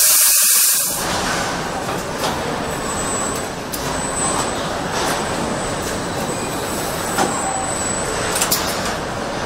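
Car assembly-line machinery: a steady mechanical din with scattered clicks and knocks. It opens with a loud hiss of air that stops about a second in.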